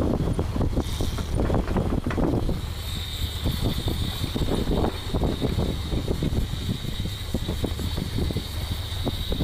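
Fishing reel with a fish on the line, buzzing in a steady high whine that starts about two and a half seconds in. Underneath are wind buffeting the microphone and the boat's low rumble.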